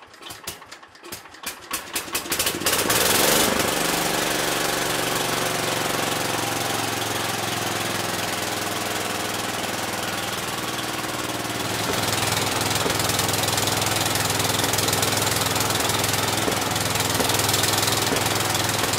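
Kohler K-Series single-cylinder engine being cranked for about two seconds, then catching and settling into a steady run, a little louder in the last third. It fires right up on its newly converted battery-and-breaker-points ignition.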